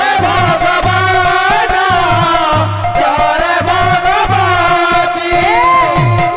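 Loud live Sambalpuri kirtan folk music. A drum strikes a steady beat about once a second under jingling percussion, with a wavering melody over held drone tones.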